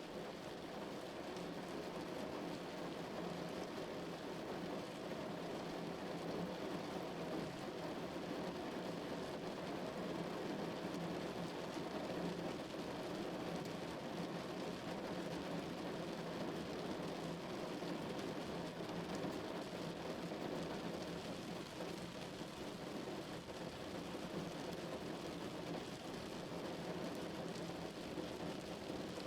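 Steady rain falling on a car's roof and windows, heard from inside the car as an even, muffled hiss that is strongest in the low-middle range.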